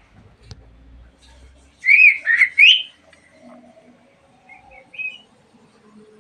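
Budgerigar chirping: a loud burst of warbling chirps about two seconds in, and a short, softer chirp near five seconds.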